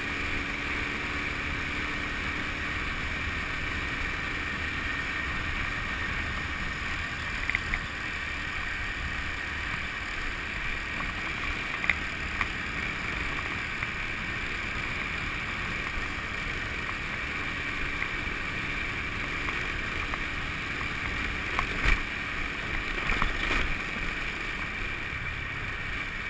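Honda motor scooter riding along at steady speed: an even engine drone mixed with wind rushing past the camera, with a few sharp knocks from bumps in the road about 7 seconds in, around 12 seconds, and several near the end.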